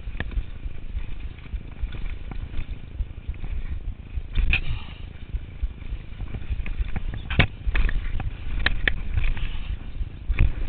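Turner DHR downhill mountain bike running over a rough dirt trail: a steady rumble of wind on the microphone and tyres on dirt, with sharp clanks and rattles from the bike over bumps, the loudest in the second half.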